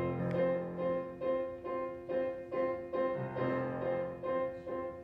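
Piano introduction: a chord struck repeatedly at an even pulse, about two or three strikes a second, leading in to the choir's entry.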